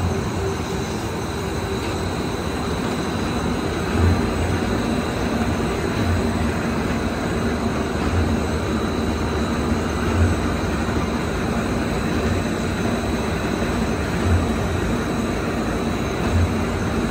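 LYAN-1850 solidboard laminating machine running: a steady mechanical rumble and hiss from the rollers with a faint high whine over it, and a dull thump about every two seconds.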